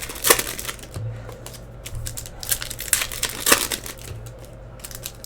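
Foil trading card pack wrappers crinkling and cards being handled, in irregular rustles and clicks, over a low steady hum.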